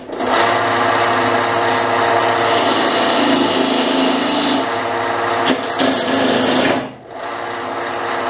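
Wood lathe spinning a square glued-up cypress pine blank while a chisel roughs it round, the gouge chattering and chipping at the corners in a loud, rough, continuous cut. It starts abruptly, dips briefly about seven seconds in, then carries on a little quieter.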